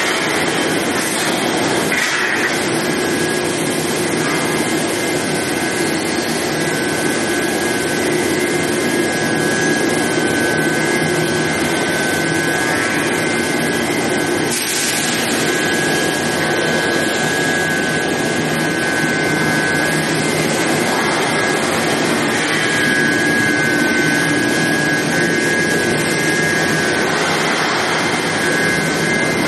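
Steady running noise of an induction heat treatment line for oil drill pipe, with a high whine held steady over the machinery noise.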